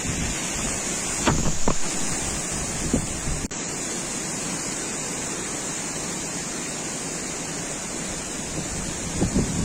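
Strong wind rushing and buffeting the microphone, with harder gusts about a second in and again near the end, and a sharp click a little after three seconds.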